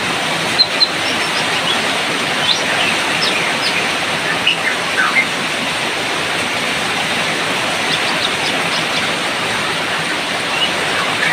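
Steady, loud rain with short, high bird chirps and whistles scattered over it from a white-rumped shama (murai batu).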